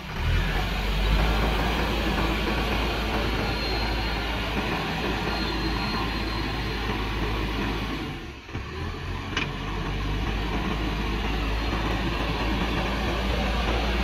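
JCB backhoe loader's diesel engine running steadily under load as its front bucket pushes and levels soil. The sound dips briefly a little past the middle, then carries on.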